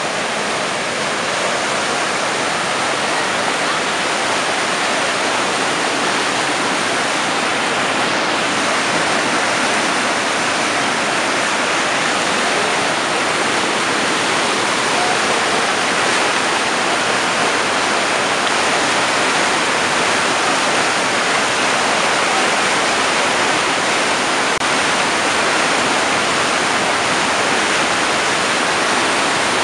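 Fast mountain river rushing through whitewater rapids over boulders: a loud, steady, unbroken rush of water.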